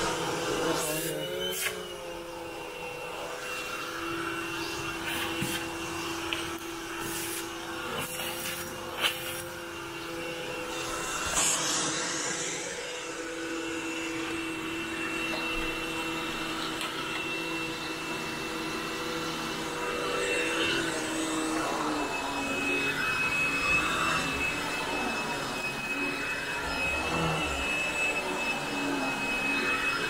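Upright vacuum cleaner running as it is pushed over carpet: a steady motor whine, with a few sharp clicks along the way.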